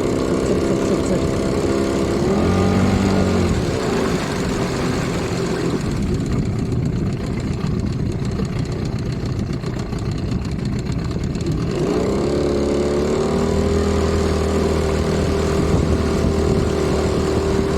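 HDX 9.8 two-stroke outboard motor running: revved up about two and a half seconds in, dropping back to a lower, uneven run, then revved again about twelve seconds in and held steady. The motor has a new light tapping knock (постукивания), which the owner is showing.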